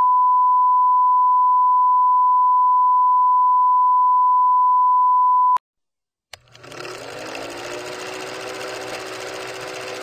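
A steady 1 kHz test tone, the reference tone of a colour-bar test pattern, which cuts off abruptly about five and a half seconds in. After a moment of silence and a click, a steady noisy hum fades up near the end.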